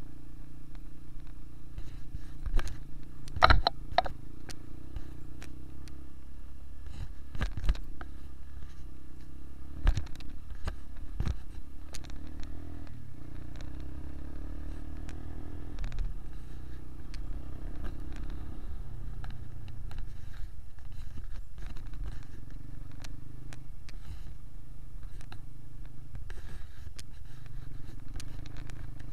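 Honda motorcycle engine running steadily while riding a rough dirt road, with sharp knocks and clatters as the bike jolts over bumps, the loudest a cluster about three and a half seconds in and more around eight and ten seconds in. The engine note shifts a little partway through.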